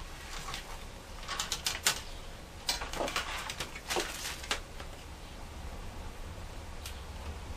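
Plastic screen bezel of an Acer Aspire 3680 laptop being fitted back onto the display lid by hand: several quick runs of small plastic clicks and taps, sparser near the end.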